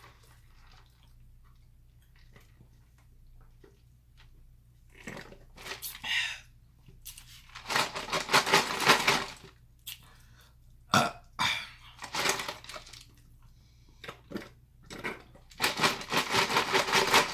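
A person burping loudly several times after eating, with shorter burps in between. Two long drawn-out burps are the loudest: one about eight seconds in and one near the end.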